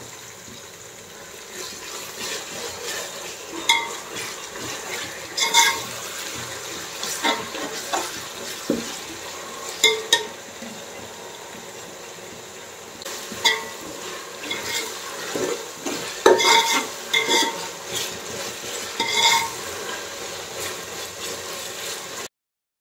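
Perforated metal spoon stirring in a metal cooking pot, with a dozen or so sharp ringing clinks as it strikes the pot, over a steady sizzle of green leaves frying in hot oil and masala. The sound cuts off suddenly near the end.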